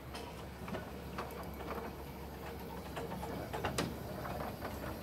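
Small narrow-gauge saddle-tank steam locomotive close by, giving irregular light metallic clanks and knocks over a low steady hum, with one sharper knock about three-quarters of the way through.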